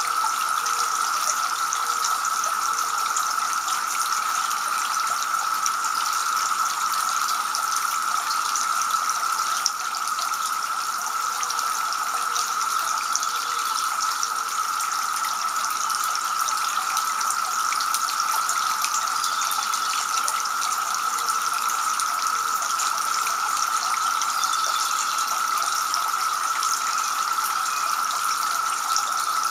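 Water from a two-tier garden fountain trickling and splashing into its basin, a steady unbroken sound.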